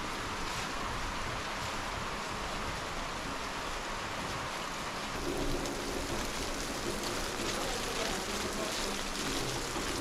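Steady rain with rainwater running off, an even hiss. A faint low hum comes in about halfway through.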